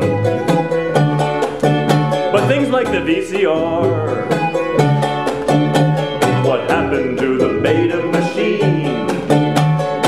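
Live band music with a steady beat and a repeating bass line.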